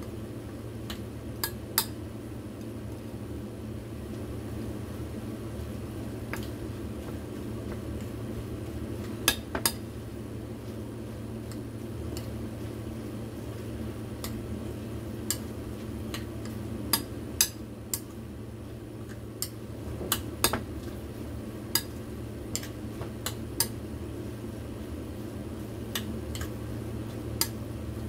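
Chopsticks stirring dumpling filling in a ceramic bowl, with irregular sharp clinks every second or two as they knock against the bowl. A steady low hum runs underneath.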